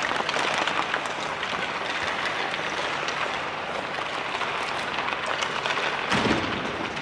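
Ice-rink practice ambience: a steady wash of skate blades scraping the ice, with scattered clicks of sticks and pucks, and a dull thump about six seconds in.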